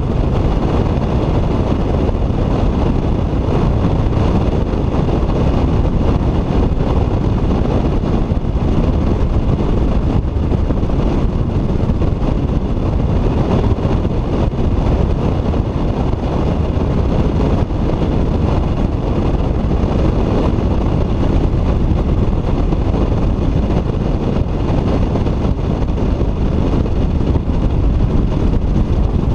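Steady, loud wind buffeting on the microphone and the rush of a bass boat running at speed over choppy river water.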